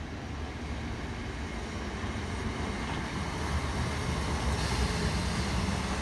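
Red South Western Railway electric multiple unit approaching and running past along the platform, a steady rumble of wheels on rails that grows louder as it nears.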